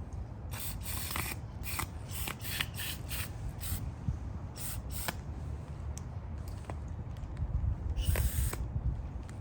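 Aerosol carburetor cleaner sprayed in a string of short hissing bursts, the longest about eight seconds in, with a few small clicks of parts being handled between them.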